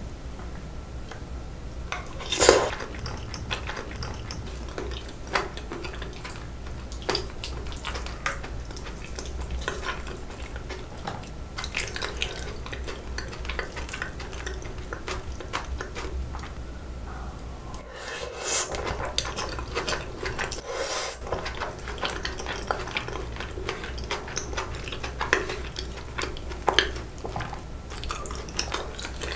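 Chopsticks and a metal spoon clicking and scraping against a glass bowl as noodles in a thick spicy sauce are stirred, with chewing between the clinks. One sharp clink about two and a half seconds in is the loudest.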